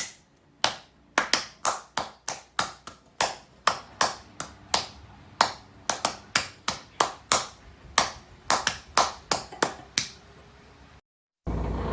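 A rapid, uneven series of sharp claps, about two or three a second, stopping about ten seconds in.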